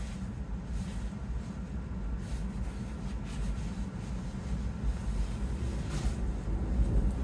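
Low road and tyre rumble inside the cabin of a Tesla Model Y electric car driving on a snow-covered road, slowly growing louder.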